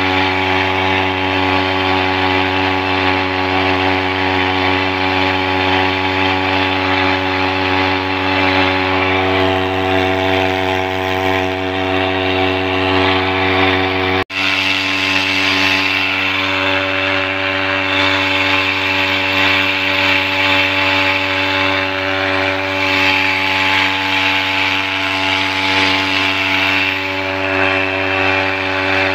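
Small petrol outboard motor running steadily at constant speed, driving the boat along. The sound breaks off for an instant about halfway through.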